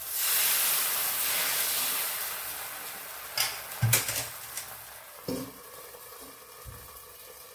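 Dosa batter sizzling on a hot cast-iron tawa, loud as it is spread and dying down over a few seconds. Then come a few sharp metal knocks and clinks, about three to five seconds in, as a steel lid is set over the pan.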